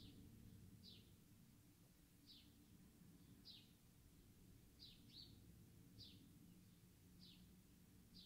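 Near silence: faint room hum with a bird chirping in the distance, one short falling chirp about once a second.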